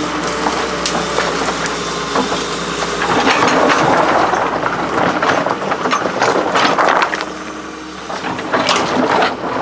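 Large excavator's engine running, with irregular knocks and crunching that get louder from about three seconds in.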